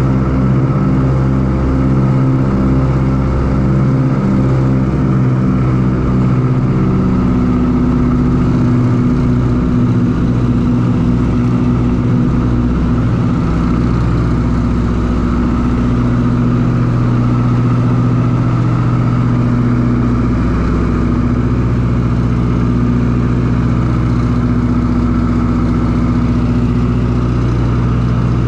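Ford Tri-Motor's radial engines droning steadily in cruise flight, heard from inside the cabin. For the first several seconds the engine tones beat against each other in a pulsing throb, then settle into a smoother, even drone.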